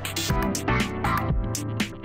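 Upbeat electronic theme music with a steady drum beat.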